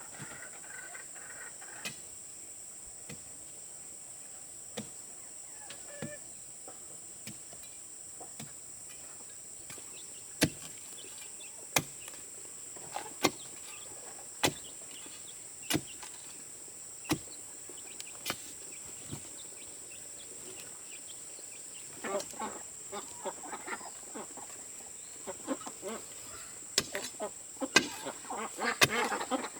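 Digging tool striking soil in a steady rhythm, about one blow every second and a half, over a steady high insect drone. Ducks start calling near the end.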